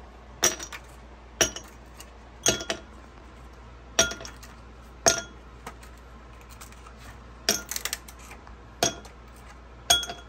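Ice cubes dropped one by one from a plastic ice-cube tray into an empty drinking glass, each landing with a sharp, briefly ringing clink. There are about nine clinks roughly a second apart, with a quick cluster of several together a little past the middle.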